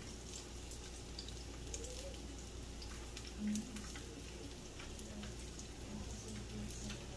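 Cauliflower frying in vegetable oil, a faint steady sizzle with scattered crackles and pops. A brief low hum from a voice about three and a half seconds in.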